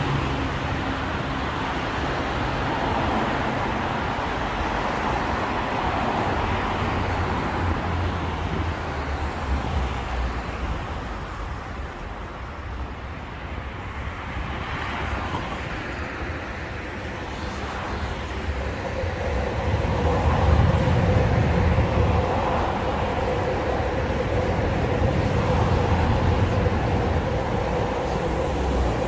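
City street ambience: road traffic running past, swelling about two-thirds of the way through, when a steady hum joins in.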